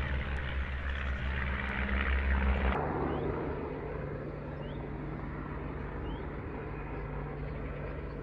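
Light aircraft engine droning steadily overhead, the sound changing abruptly about three seconds in, with a few faint bird chirps after.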